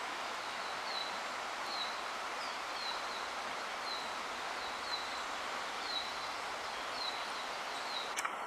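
Steady rush of a shallow river running over riffles, with a short high chirp repeating about once a second.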